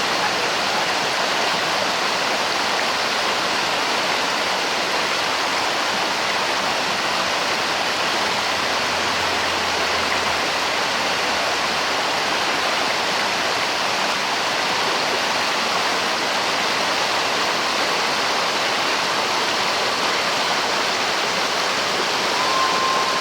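A creek flowing, a steady, even rush of running water. Near the end there is a brief faint whistle-like tone.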